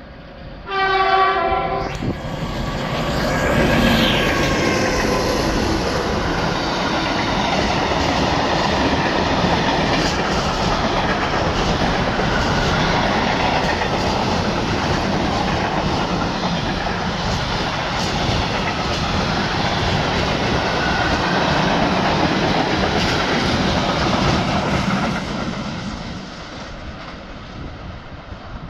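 DB Class 232 'Ludmilla' diesel locomotive sounding a short horn blast about a second in, the driver's greeting. It then goes by loud, its engine note falling in pitch as it passes. A long freight train follows, its wagons clattering along with scattered clicks and fading out near the end.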